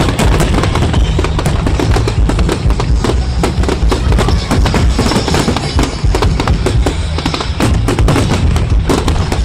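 Fireworks display going off in quick succession: a dense, continuous run of cracks and bangs over a deep low rumble, with music playing along.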